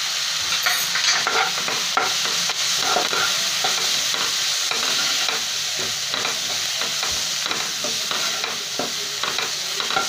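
Chopped onions and ground spices sizzling in hot oil in a non-stick kadhai, stirred with a steel spoon that scrapes and clicks against the pan again and again over a steady frying hiss.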